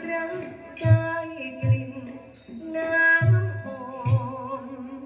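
Likay (Thai folk-opera) singing over a traditional Thai ensemble: a voice holds long notes that waver and slide, while a drum strikes a few low beats.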